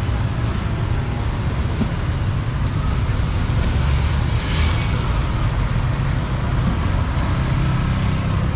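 Steady street traffic, with motorbike and car engines passing on the road. One pass swells louder for a moment about halfway through.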